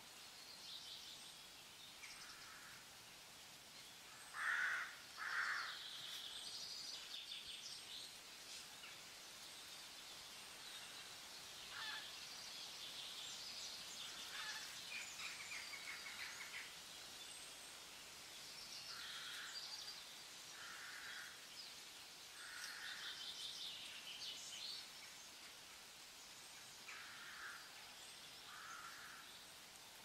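Several birds singing and calling: high chirps and trills throughout, and short lower calls, often in pairs, the loudest pair about four to five seconds in.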